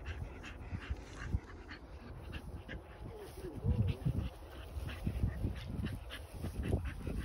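A dog whining in short, bending calls, one about halfway through, over the steady rumble of wind on the microphone.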